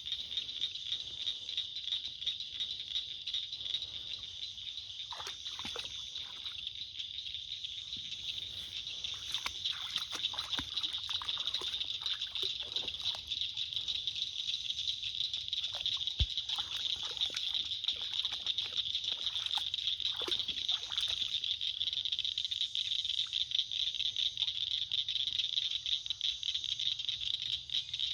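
Water sloshing and splashing in short irregular bursts as a dog plays in it, over a steady high-pitched hiss.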